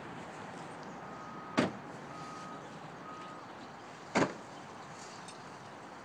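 Parking-lot sounds: a steady background din, with two sharp bangs of car doors slamming, about a second and a half in and again about four seconds in. Three short electronic beeps at one steady pitch sound in the first few seconds.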